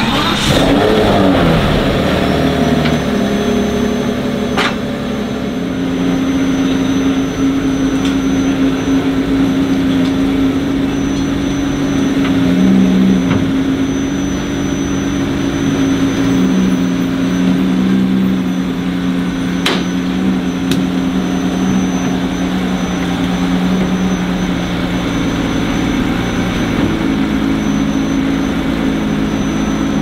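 The Mercedes-Benz F200 Imagination's 6-litre V12 running at low speed. Its revs drop and settle in the first two seconds, then hold steady with small rises and falls. A thin high whine sits over it throughout.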